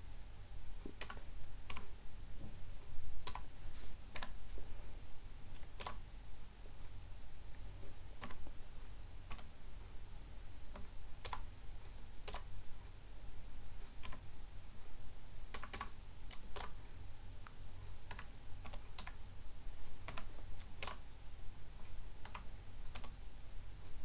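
Computer keyboard being typed on slowly: single keystrokes at irregular intervals, about one a second, over a steady low hum.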